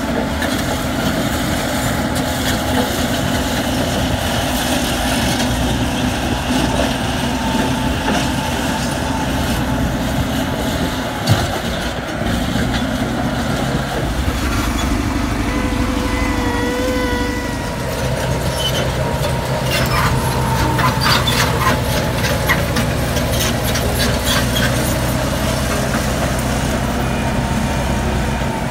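Heavy diesel earthmoving machinery running steadily. About halfway through there is a brief tone, and a few seconds later a short run of clicking and rattling.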